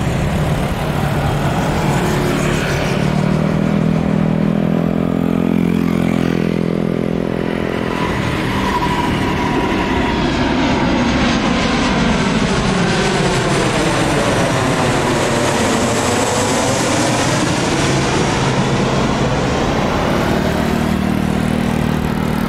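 Jet engines of a Boeing 737 airliner on landing approach, gear down, passing low overhead. The steady engine noise carries a whooshing sweep in pitch as the plane passes and moves away in the second half.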